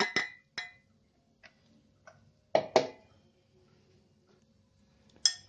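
Steel mixer-grinder jar knocking against a glass bowl as ground biscuit powder is emptied out: a few sharp clinks, the loudest two in quick succession about two and a half seconds in.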